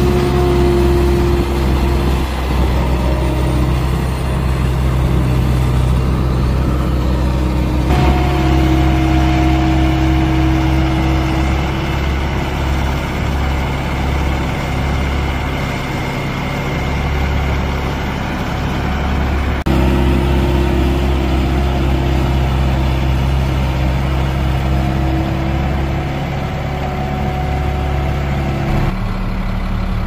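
Diesel engine of a Bobcat S185 skid-steer loader running steadily, with a higher tone that drifts up and down a little as it works. The sound changes abruptly twice.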